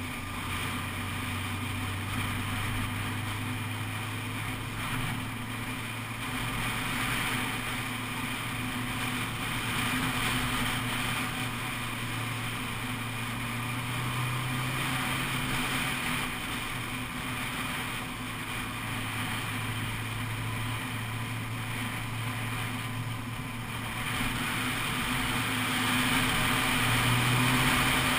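Honda CBF600 SA's inline-four engine running at a steady road speed, with wind and road noise on the microphone. The engine note rises a little about halfway through and again near the end.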